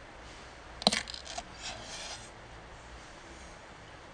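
A crisp bite into a firm, sour green fruit, one sharp crunch, followed by a few seconds of crunchy chewing close to the microphone.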